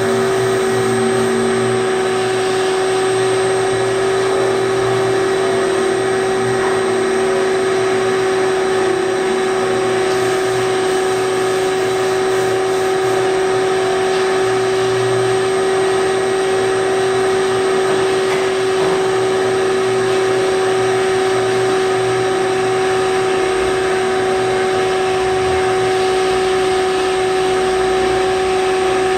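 A steady machine drone with a constant pitched whine over a noisy hiss, unchanging throughout.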